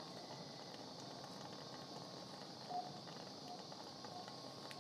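Quiet operating-room hiss with faint short beeps from a patient monitor, about one every three-quarters of a second, beginning a little past halfway through.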